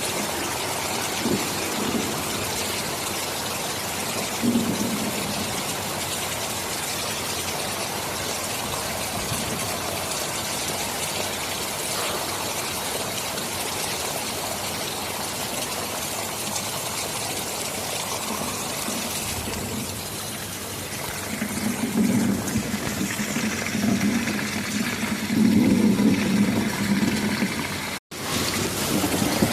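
Heavy rain hissing steadily, with a low rumble of thunder swelling up in the second half. Near the end the sound cuts out for an instant.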